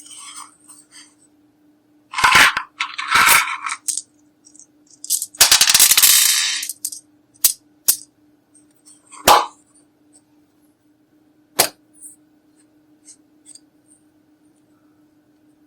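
Small hard plastic makeup containers being handled: two short rattles, a longer rattle lasting over a second, then a few single sharp clicks like cases and caps snapping shut, over a faint steady hum.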